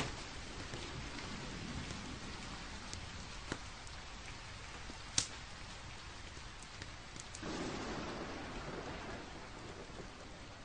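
Steady rain falling, with a few sharp pops and a swelling rumble about seven seconds in.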